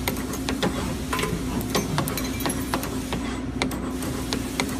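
CNC wire-bending machine running: a steady motor hum with irregular sharp clicks and knocks, two or three a second, as the wire is fed through the rollers and bent.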